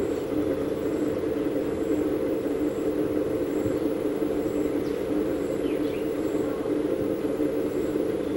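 Steady outdoor background noise with an even, machine-like hum.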